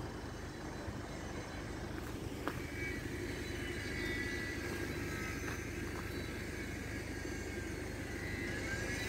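Steady low rumble at a level crossing with its barriers down and warning lights flashing. A faint, wavering high tone comes in a couple of seconds in, with a few small clicks.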